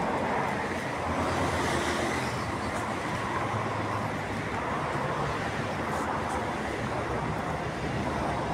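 Steady city traffic noise: a continuous low rumble of vehicles on the surrounding streets.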